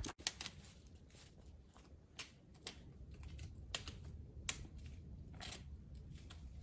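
Footsteps on a rocky trail: irregular light clicks and scuffs of boots on limestone, about one step every second or so.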